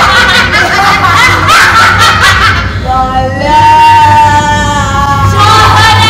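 Several women's voices cackling with laughter. From about three seconds in they change to long held notes sung or wailed together, over a steady low hum.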